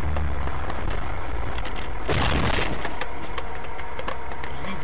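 A car hitting a truck, heard from inside the car: one loud crash about two seconds in that lasts about half a second, with sharp clicks over steady road noise.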